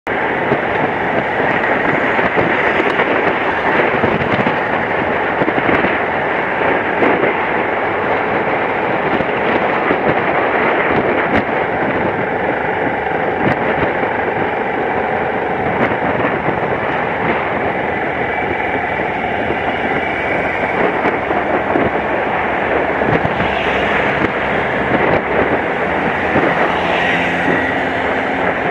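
Steady wind rush on the microphone of a camera on a moving BMW F700GS motorcycle, with the bike's parallel-twin engine running underneath.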